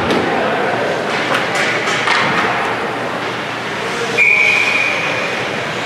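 Ice hockey game noise in an arena, with scattered knocks and thuds of sticks and puck. A referee's whistle sounds once, steadily for about a second, about four seconds in.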